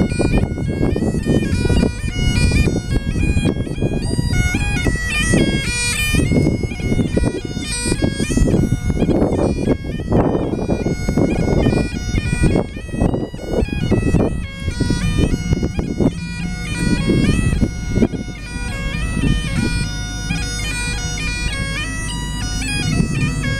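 Great Highland bagpipes playing a tune, the melody stepping from note to note over the steady drones, with a low rumble of wind on the microphone underneath.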